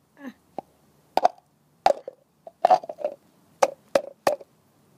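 A string of short, sharp wet plops, about one every half second: lumps of red diaper-powder gel being shaken out of a cup and dropping onto gravel.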